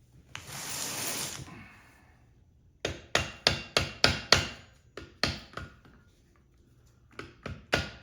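Hammer striking a replacement planetary gear (clutch) assembly to drive it into an e-bike hub motor, sharp metallic blows about three a second. The blows come in two runs with a pause between, after a brief rustle. The gear is a tight fit, stuck partway in.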